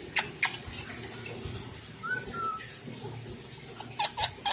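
Pet parrot calling: two sharp, loud squawks at the start, a short whistle about two seconds in, and a quick run of short chirps near the end.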